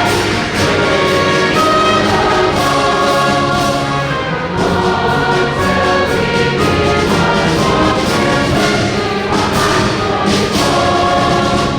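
Band music with brass and choir voices, steady and loud throughout: a performance of a patriotic armed forces service-song medley.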